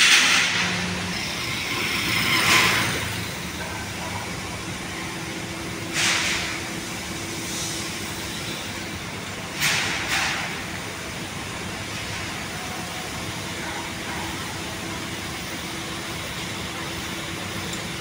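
Construction-site and street ambience: a steady hum of heavy-equipment engines and traffic, broken by several short hissing swooshes in the first half.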